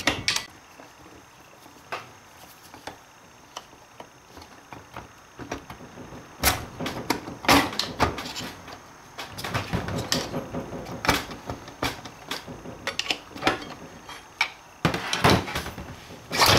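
Screwdriver prying and working at parts inside an open automatic transmission case: scattered metallic clicks, knocks and scrapes, in a few clusters over the second half.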